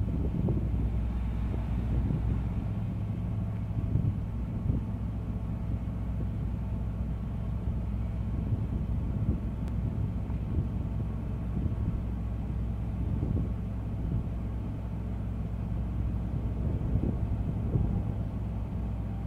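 An engine running steadily with a low rumble and hum.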